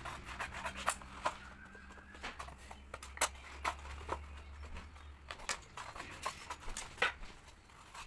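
Scissors cutting through a sheet of paper with drinking straws glued onto it: a run of sharp, irregular snips.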